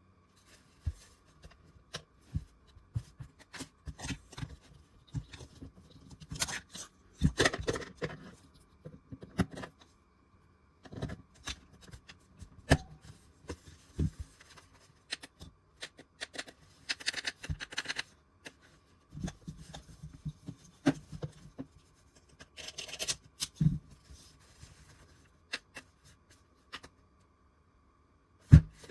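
Handling noises: scattered clicks and knocks with short bursts of rustling, and one loud knock near the end.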